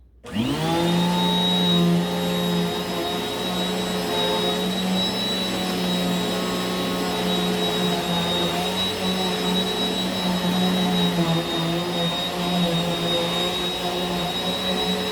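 A 2000 W WAP Power Speed 2-in-1 upright vacuum cleaner switched on: its motor spins up, rising in pitch within the first second, then runs steadily with a high whine.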